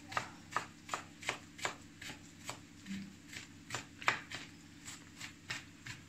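Kitchen knife chopping onion and cilantro on a cutting board: quick, even knocks of the blade on the board, about three a second, one of them sharper about four seconds in.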